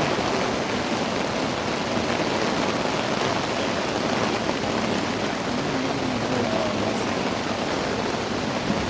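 Heavy rain falling steadily, a loud even hiss of rain on the ground and nearby surfaces.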